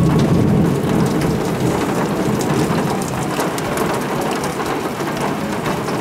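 Rain falling on concrete, an even hiss with the ticks of individual drops, and a rumble of thunder that is loudest in the first second and slowly dies away.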